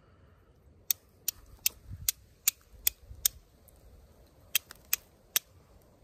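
Flint and steel: a steel striker scraped down hard against a piece of flint, seven quick sharp strikes, a short pause, then three more, throwing sparks onto char cloth laid over the flint's edge to catch an ember.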